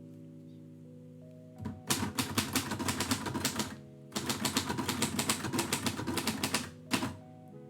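1949 Royal Quiet Deluxe manual typewriter being typed on in two quick runs of keystrokes, each about two seconds long, with a last single keystroke near the end. Background music with soft sustained chords plays under it.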